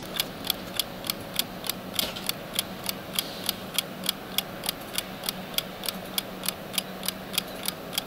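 Soviet Vityaz 4-jewel mechanical alarm clock ticking steadily, about four to five ticks a second.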